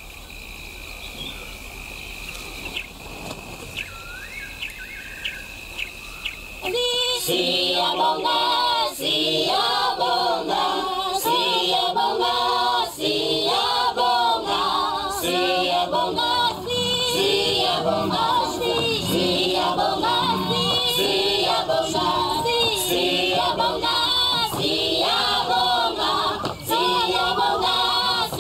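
A choir singing, coming in loudly about seven seconds in. Before it, a quieter stretch with a steady high trill and a few short chirps.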